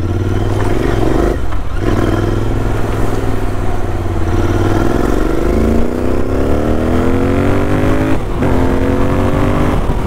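Royal Enfield Interceptor 650's parallel-twin engine pulling under acceleration on the move. Its pitch rises steadily from about five seconds in, then breaks briefly at a gear change about eight seconds in before pulling again; there is a similar short break about a second and a half in.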